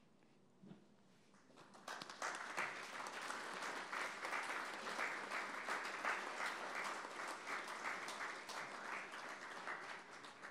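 An audience applauding. The clapping breaks out about two seconds in, keeps up steadily and dies away near the end.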